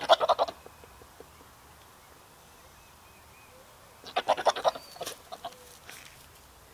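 Domestic goat bleating twice, a short quavering bleat at the start and a longer one about four seconds in.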